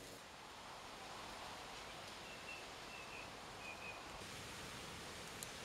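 Faint woodland ambience: a steady soft hiss with a few short high chirps between about two and four seconds in, and a single small click near the end.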